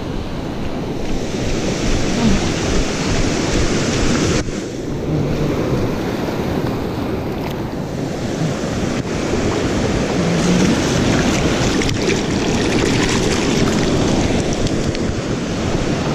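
Ocean surf washing up the sand in a steady rush of breaking waves and foam, with wind buffeting the microphone.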